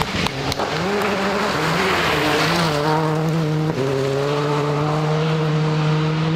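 Rally car engine under hard throttle, its note climbing and dropping with gear changes, then holding steady from a little after halfway, over a constant hiss of tyre and road noise. A few sharp cracks come near the start.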